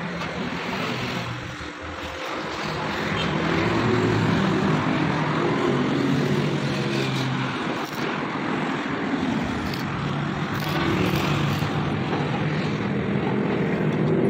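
Steady mechanical running noise over a broad hiss. It dips briefly near the start, then grows a little louder and holds.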